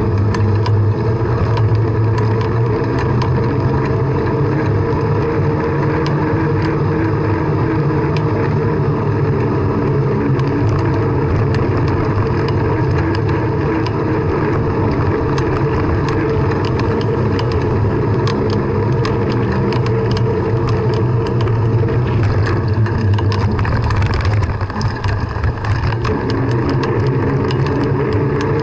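Steady wind rush and riding noise on a bicycle-mounted action camera while pedalling along a road and sidewalk, scattered with small rattles and clicks from the bike over bumps. It eases briefly a few seconds before the end.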